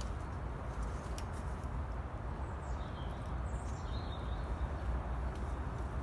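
Outdoor ambience dominated by a low rumble on the microphone, with a few faint bird chirps about halfway through and a couple of light clicks near the start.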